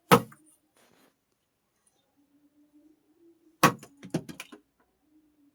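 Foley props being struck: one sharp hit, then about three and a half seconds later a quick run of about six clattering, jangly hits.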